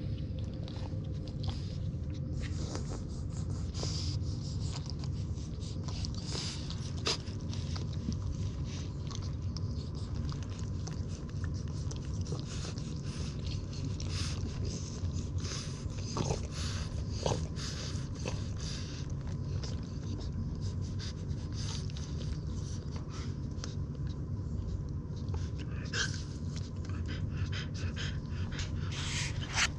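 Newborn French Bulldog puppies suckling at their mother's teats: many small wet clicks and smacks over a steady low rumble.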